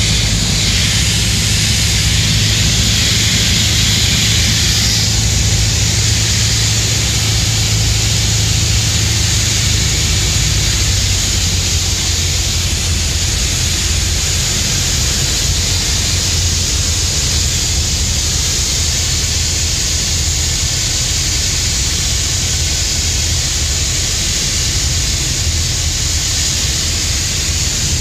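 Light aircraft engine and propeller droning steadily, heard from inside the cockpit in flight, with a low hum under a constant rush of air noise.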